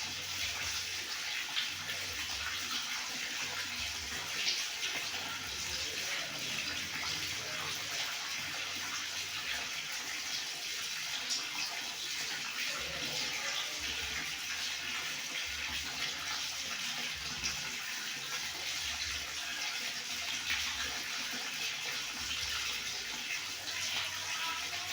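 Water running steadily from a tap and splashing below, an even, unbroken rush.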